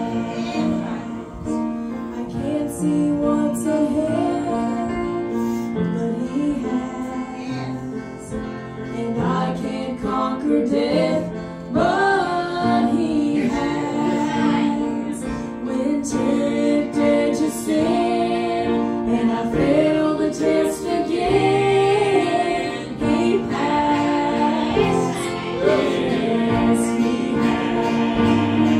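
A man and a woman singing a gospel song as a duet into microphones, with sustained instrumental accompaniment.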